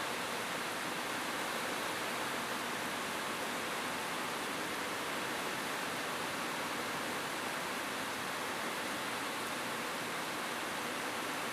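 Steady rain falling on a rooftop: an even, unbroken hiss with no single drops standing out and no thunder.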